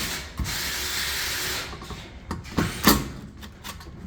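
Cordless drill running steadily for under two seconds while loosening screws on grill wheel-slide brackets, followed by a few knocks of parts being handled.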